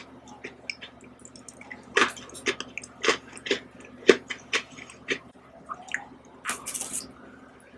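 Close-up wet mouth sounds of eating ice cream off a spoon: a run of sharp lip smacks and clicks, thickest in the middle, then a short noisy burst near the end.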